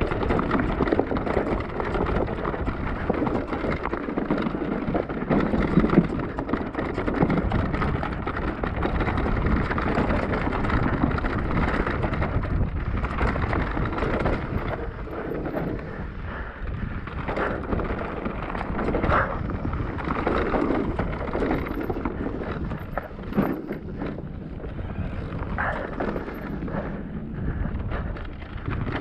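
Wind buffeting the microphone over tyre noise from a Cube Stereo Hybrid 160 e-mountain bike riding a rough trail, with a few sharp knocks and rattles from bumps in the second half.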